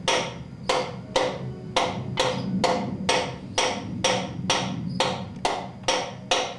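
A hammer tapping a piston and connecting rod assembly down into a cylinder of a Chevrolet 396 engine block: steady, sharp knocks a little over two a second.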